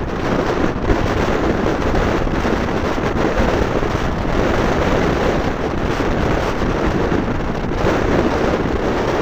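Wind buffeting the microphone of a bike-mounted mini keychain camera as the bicycle rides at race speed: a loud, steady rushing noise.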